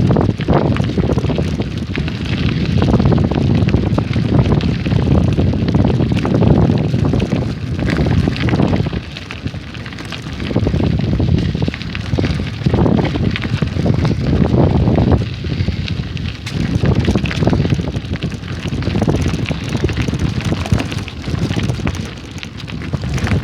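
Strong wind buffeting the microphone: a loud, gusting rumble with crackle that rises and eases every second or two.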